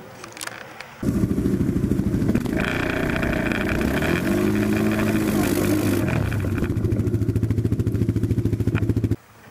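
ATV (quad bike) engine heard close up from a camera on the quad, running with a pulsing exhaust beat. It starts abruptly about a second in, revs up and falls back in pitch around the middle, and cuts off abruptly near the end.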